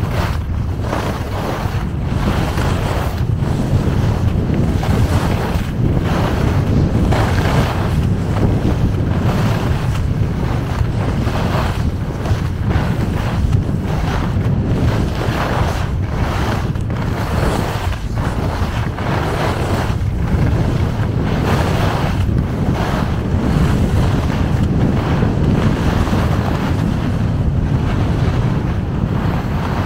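Strong wind buffeting the camera microphone while skiing fast downhill, with the skis scraping over packed snow in repeated swishes, roughly once a second.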